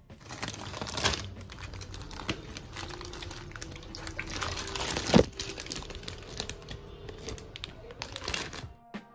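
Plastic packaging crinkling and rustling as it is handled, with many small clicks and a couple of louder knocks, about one and five seconds in. It stops abruptly shortly before the end.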